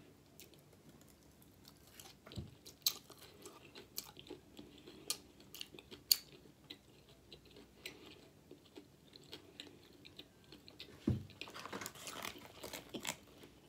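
A person chewing a mouthful of pulled pork burger, with irregular soft wet clicks and smacks. A low thump comes near the end, followed by a busier stretch of chewing.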